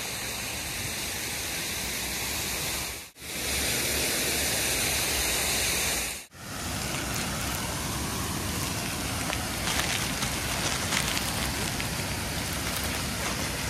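Steady rush of water falling over a cascade waterfall, a constant even roar of spray, cut off briefly twice, about three and six seconds in.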